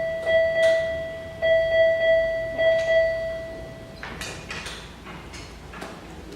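Electronic alarm on medical equipment beeping over and over in one steady pitch, stopping about four seconds in, followed by a few light clicks and knocks.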